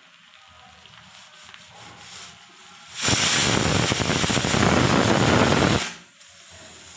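Faint sizzling of uttapam batter on a hot iron tawa. About three seconds in, a loud, even rush of noise starts abruptly, lasts nearly three seconds and cuts off suddenly.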